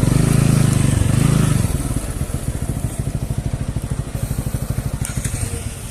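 Motorcycle engine pulling hard for about the first two seconds, then easing back to a lower, steady putter.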